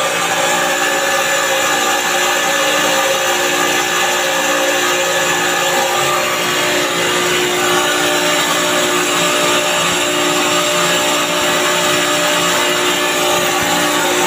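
Chiller compressor running loud and steady, several constant tones over a hiss; the compressor is being checked for an abnormal sound.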